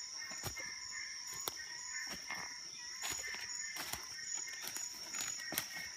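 Steady high-pitched insect chorus, with a lower chirping that comes and goes. Scattered footfalls and knocks from walking with a load.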